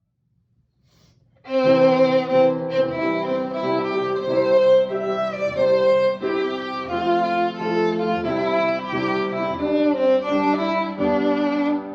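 Violin music with sustained bowed notes, starting suddenly after silence about a second and a half in.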